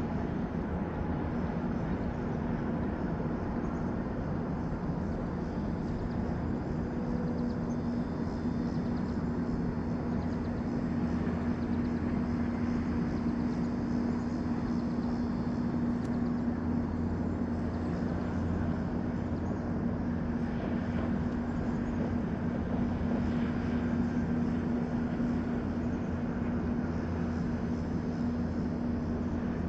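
Flooding river rushing, a continuous even roar of fast-moving water, with a steady low hum running under it.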